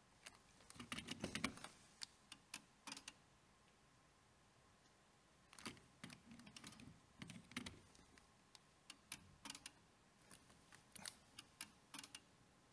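Faint, irregular clicking and tapping in clusters, with a few soft knocks, as test probes are set on and taken off the contactor's terminals during an insulation resistance measurement.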